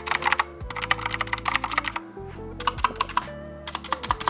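Fast typing on a Royal Kludge RK61 60% mechanical keyboard: rapid clattering keystrokes in four quick runs with short pauses between them, over background music.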